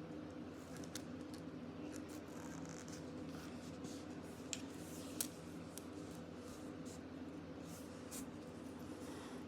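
Hands handling plastic kandi beads and string: scattered small clicks and rustles over a steady low hum, with two sharper ticks about halfway through.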